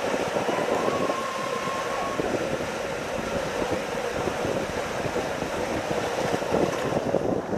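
Rushing water and a rider's body sliding at speed down the inside of an enclosed water-slide tube, a steady rumbling rush with dense crackle.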